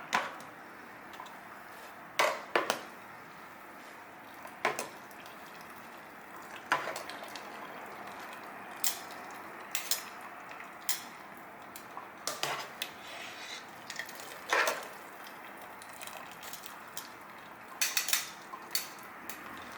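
Metal kitchen utensils and cookware clinking and knocking as cooked ramen noodles are handled: scattered sharp clacks every second or two over a low steady hiss.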